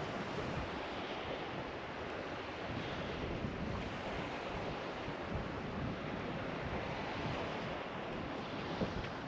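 Sea washing against the hull of a drifting boat, with wind on the microphone: a steady rushing noise with no engine note.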